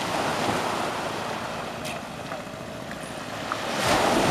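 Shallow seawater washing and sloshing with small waves, with wind on the microphone; it swells a little near the end.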